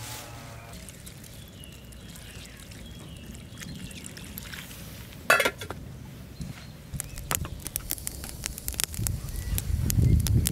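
Water pouring and trickling as nettles are washed in a stainless steel pot. About five seconds in comes one sharp metallic clink, the pot's lid being set in place. Near the end a wood fire crackles under the pot with a low rumble.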